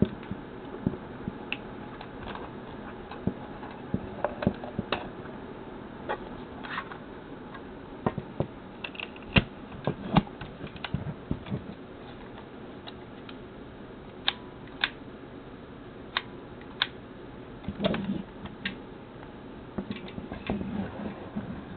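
Scattered clicks and knocks from a Fujifilm Fujipet EE camera being handled: its body turned in the hands and its back cover taken off, with hard plastic and metal parts tapping and snapping. A steady hiss runs underneath.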